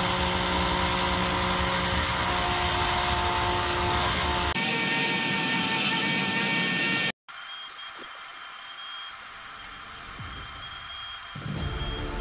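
Ryobi rotary tool running steadily with a felt polishing wheel, buffing the dried tung oil finish on a wooden hull; a constant motor whine. The sound cuts out briefly about seven seconds in, then comes back thinner and higher.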